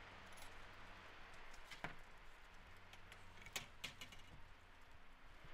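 Near silence: a faint steady low hum with a few faint, scattered clicks.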